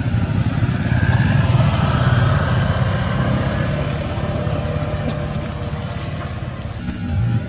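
A motor vehicle's engine running close by, loudest about two seconds in and then slowly fading as it goes past.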